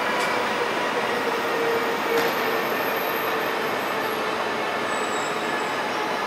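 Electric-hauled passenger train of InterCity coaches rolling slowly out along the platform: a steady rolling rumble of wheels and coaches with a faint hum, a thin high wheel squeal partway through and a couple of light clicks.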